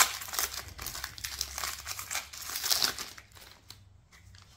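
Foil wrapper of a Pokémon card booster pack crinkling and tearing as it is opened: a dense crackle that dies down about three seconds in, leaving a few faint clicks.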